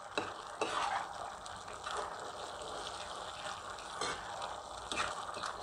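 Thick sauce sizzling and bubbling in a non-stick pan as a spatula stirs it, with a few light clicks and scrapes of the spatula against the pan.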